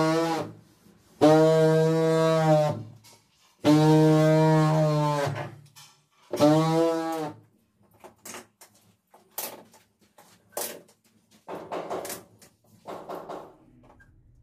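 Handheld tile vibrator with a suction cup, pressed onto a large ceramic wall tile to bed it into the adhesive, buzzing at one steady pitch in four bursts of one to two seconds each. About eight seconds in the buzzing gives way to a run of light knocks and taps on the tile.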